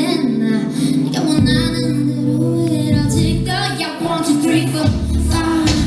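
Pop song performed with a woman singing over instrumental accompaniment; a low bass part comes in about a second and a half in.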